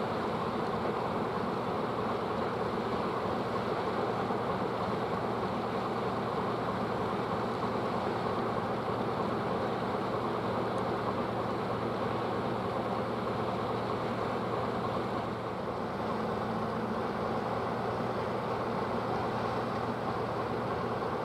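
Steady machinery hum with a constant low rumble and no clear breaks, dipping slightly once about three quarters of the way through.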